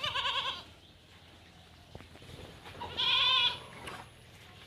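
A farm animal bleating twice, each call short and quavering, the second about three seconds after the first.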